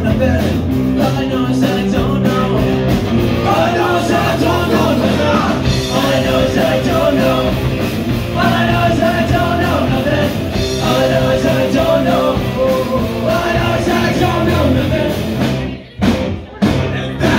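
A live rock band plays loud electric guitars with singing. Near the end the music breaks off abruptly, followed by a couple of short hits.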